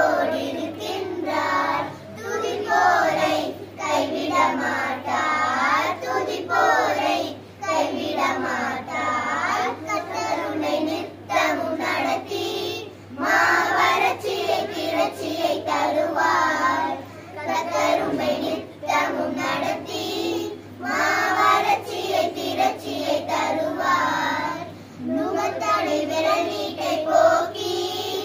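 A group of children singing a song together in chorus, phrase after phrase with brief breaths between lines.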